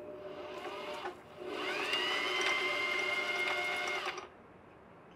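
Domestic sewing machine motor running to wind a bobbin: a short run, a brief pause about a second in, then a longer run whose whine rises in pitch, holds steady and stops about four seconds in.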